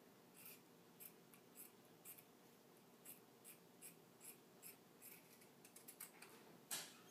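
Scissors snipping through a cotton t-shirt, faint short cuts about two a second that come quicker near the end, followed by a brief louder noise.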